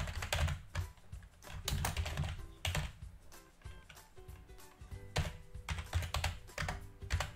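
Typing on a computer keyboard in quick runs of keystrokes, with background music under it.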